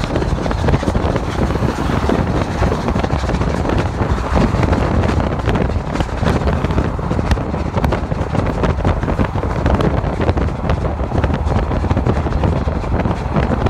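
Wind buffeting the microphone of a moving car, mixed with the car's tyre and road noise: a steady low rumble that rises and falls in gusts.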